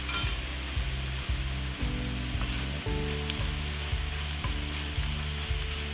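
Dove breast pieces, peas, carrots, celery and onion sizzling in a hot pan as a spoon stirs them. Background music with a steady beat plays underneath.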